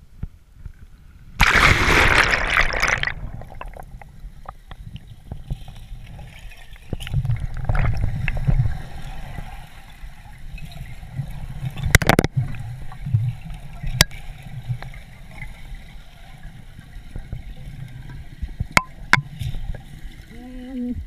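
Splash as a waterproof-housed action camera goes under the water about a second and a half in, then muffled underwater sloshing and gurgling with a few sharp clicks and knocks on the housing. A short low tone sounds near the end.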